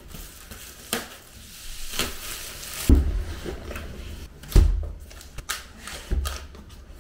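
Unboxing a MacBook Pro: plastic shrink wrap rustling and crinkling, then the cardboard box lid and the wrapped laptop being handled and lifted out, with clicks, scrapes and a few heavy thumps about three seconds in, near five seconds and again about a second later.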